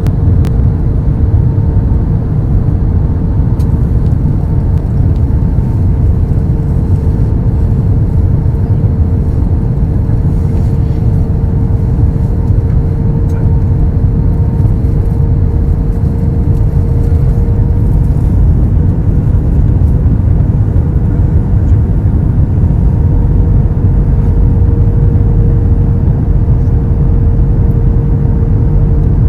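Airbus A321 cabin noise in flight: a steady, loud low roar of the jet engines and rushing air, with a constant hum running through it.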